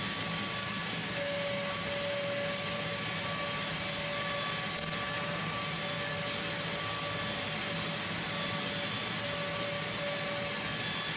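Shop vacuum running steadily with a constant whine, its hose worked over the freshly sanded lathe body to pick up sanding dust.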